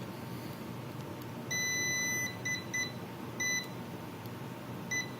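Continuity beeper of an electrical tester sounding across the probes on a 30-amp cartridge fuse: one longer high beep about a second and a half in, then several short, broken beeps as the probe contact makes and breaks. The beep shows continuity, so this fuse conducts.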